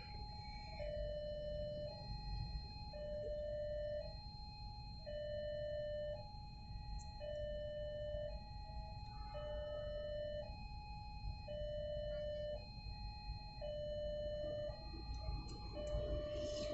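Electronic two-tone railway level-crossing alarm: a higher and a lower note alternate steadily, about one note a second. Underneath is the low hum of idling traffic heard from inside a car.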